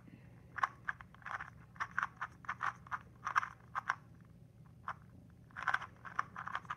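GAN 249 V2 M magnetic 2x2 speed cube being turned quickly during a solve: an irregular run of short clicks and clacks as the layers snap into place, with a quick flurry of turns near the end.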